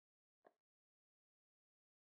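Near silence: the sound track is cut to dead quiet, apart from one brief faint sound about half a second in.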